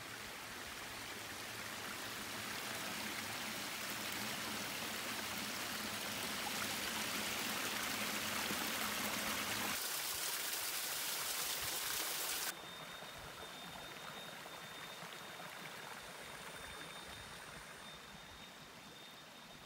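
Running water splashing over rocks from a small waterfall into a stream: a steady rushing that grows slowly louder, then cuts off abruptly about twelve seconds in. What remains is a fainter hiss with a steady high-pitched tone.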